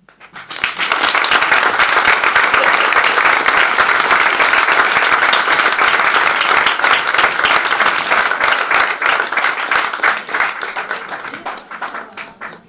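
Theatre audience applauding: clapping breaks out at once, fills out within about a second, holds steady, and thins to scattered claps near the end.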